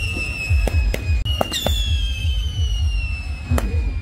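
Multi-shot firework cakes firing: about four sharp bangs spread through the display, over a high whistling tone that slowly falls in pitch and restarts partway through, with a steady low rumble underneath.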